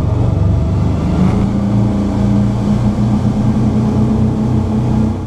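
Twin MerCruiser 8.2 Mag V8 engines of a Formula 330 CBR bowrider running, a loud steady drone; a steady hum joins in about a second in.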